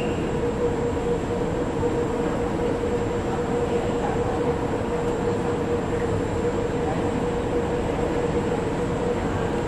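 Steady MRT station noise on a platform: an even rumble and hum of the rail system with one held mid-pitched tone, not rising or falling.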